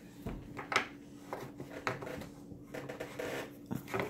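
Light, scattered taps and clacks of wooden puzzle pieces knocking against a wooden peg-puzzle board and table top, several separate knocks spread through the moment.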